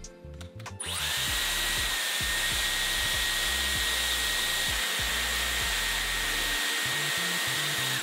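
Dyson Airwrap hair styler switched on at high speed with the 1.5-inch curling barrel: about a second in the motor spins up with a short rising whine, then runs steadily as a loud rush of air with a high whine, cutting off at the end.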